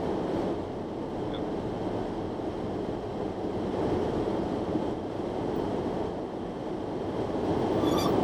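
Steady low rumble of a car driving, heard from inside the cabin, with no distinct pitch or separate events.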